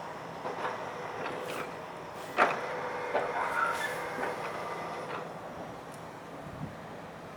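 Koki container wagons of a freight train rolling slowly past, their wheels knocking irregularly over rail joints, with the sharpest clank about two and a half seconds in and a few faint steady high tones; the knocks thin out over the last couple of seconds.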